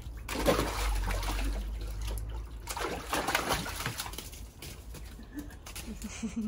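Water splashing and trickling in two bursts, with a dove cooing low near the end.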